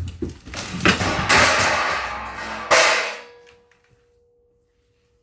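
Metal plates falling out of a table saw's packaging and clattering to the floor, ending in a loud crash about three seconds in, followed by a steady metallic ring that fades away.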